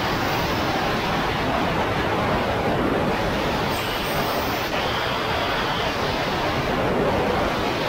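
Steady rushing noise of wind and water on a jet ski's mounted camera while the jet ski moves across the water.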